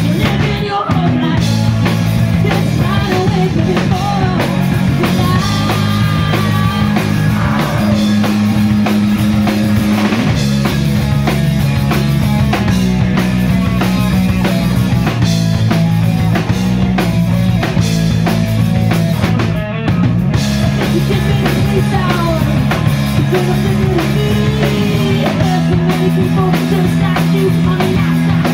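Live rock band playing loud: electric guitars, bass and a drum kit, with a voice singing. The music stops for a moment about 20 seconds in, then goes on.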